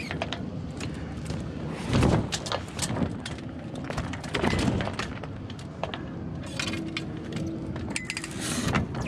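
Hobie 16 catamaran's sails and rigging during a jibe in very light wind: sail cloth rustling, with a run of clicks and knocks from the fittings and mainsheet blocks. Heavier thuds about two seconds in and again about four and a half seconds in, as the mainsail's battens pop across to the new side.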